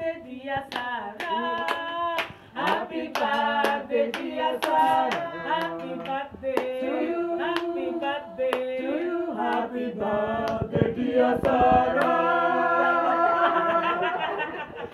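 A group of voices singing together, with hands clapping in a steady beat in time to the song.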